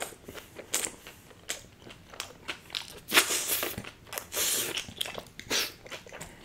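A person biting and chewing a big mouthful of tandoori stuffed mushroom with raw sliced onion, with crunchy, wet chewing sounds. The two loudest bursts of crunching come a little past three seconds in and around four and a half seconds in.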